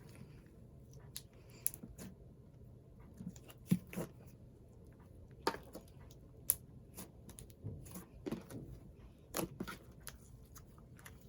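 Cloud cream slime being kneaded by hand with soft DIY clay, giving irregular sticky pops, small sharp clicks and soft squelches as it is stretched and folded.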